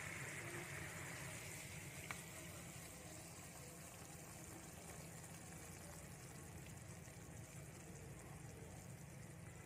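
Garlic soy sauce bubbling faintly in a nonstick frying pan, the hiss easing after the first few seconds as the pan is tipped and the hot sauce poured onto fried meat on a plate. One small click about two seconds in.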